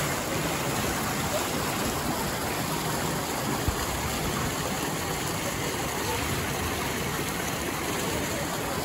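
Steady rush and splash of water from an outdoor pool's water jet pouring into the pool. A single short thump comes about three and a half seconds in.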